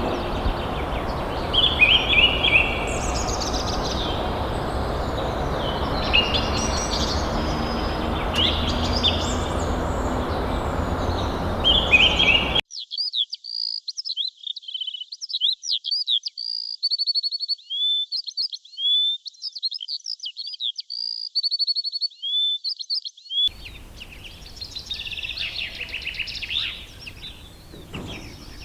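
Birds chirping and singing in three back-to-back recordings. First come calls over a loud, steady rushing noise. Then a single bird gives a clean run of quick, high, sweeping chirps, and near the end fainter song plays over a light hiss.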